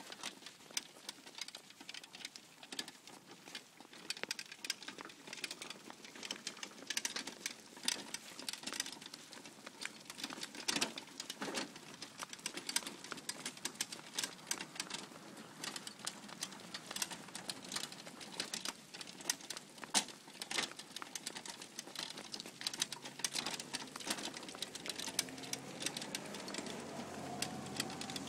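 A child's wooden-sided wagon rolling over a concrete sidewalk, its hard wheels and loose wooden body giving a fast, irregular rattle and clicking. A vehicle's engine hum comes in near the end, rising in pitch.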